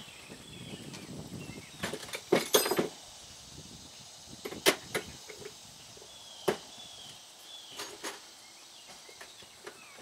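Hand tools clanking against metal parts: a quick run of clanks about two seconds in, then single sharp knocks a second or two apart.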